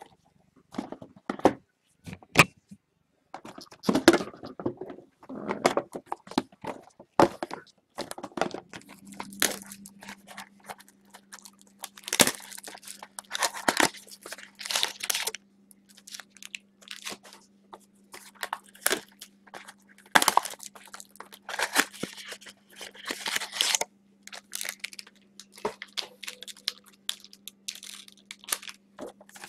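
Trading card boxes and packs being opened and handled by hand: irregular tearing and crinkling of wrapper, with clicks and scrapes of cardboard and plastic cases.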